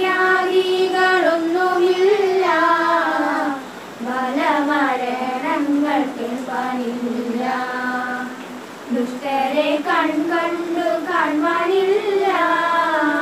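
A group of women and girls singing a song together in unison, with no instruments. The singing breaks off for a short breath about four seconds in and again near nine seconds.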